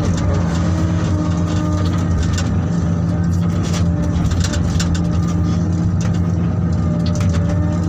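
Heavy diesel mining machinery, an excavator loading a haul truck, running with a steady low engine drone, with scattered clanks and rattles a few times.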